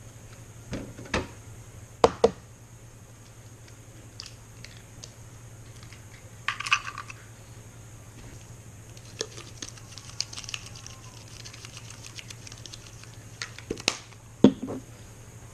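Scattered light clicks and knocks, with a few sharper clatters about two seconds in, near the middle and near the end, over a steady low hum.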